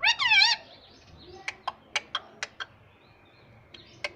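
Pet parrot giving a loud two-part call that falls in pitch, right at the start. About a second later come a quick run of about half a dozen sharp clicks.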